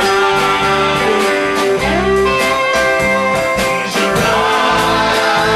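Music: a country-style song with guitar over a bass line and a steady beat.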